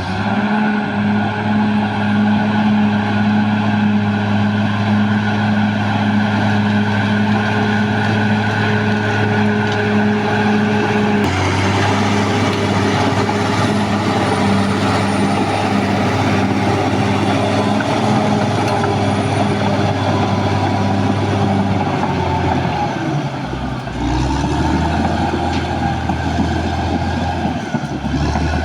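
Caterpillar D6R bulldozer's diesel engine running steadily under load. The sound changes abruptly about eleven seconds in, and the engine note drops briefly and then picks up again a little past the twenty-second mark.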